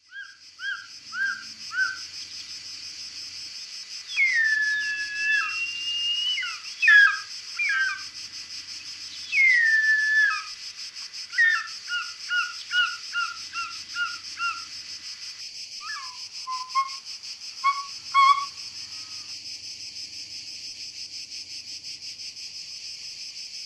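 A steady, high-pitched chorus of insects, with a bird's clear whistled calls over it. First come a few short notes, then long falling whistles about four and nine seconds in. A run of quick repeated notes follows, then a few more calls. The last five seconds hold only the insect chorus.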